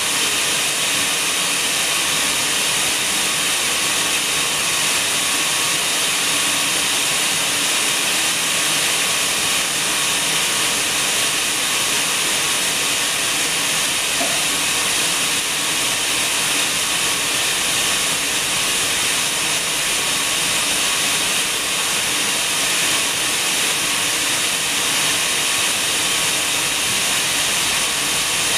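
Steady, even hiss, unchanging throughout.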